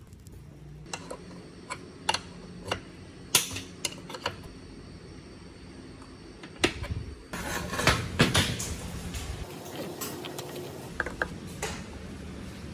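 Irregular clinks and knocks of metal parts and tools being handled, with a busier stretch of clatter about halfway through, over a steady low hum.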